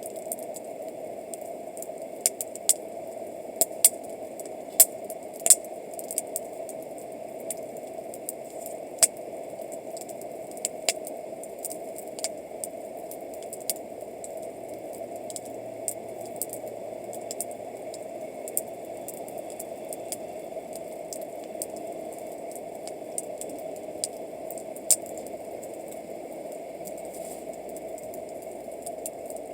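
Wood campfire crackling, with irregular sharp pops, most frequent in the first few seconds, over a steady hiss.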